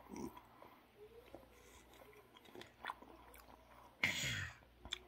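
Soft chewing of a mouthful of strawberry rhubarb pie, with a few small clicks and a brief louder rush of noise about four seconds in.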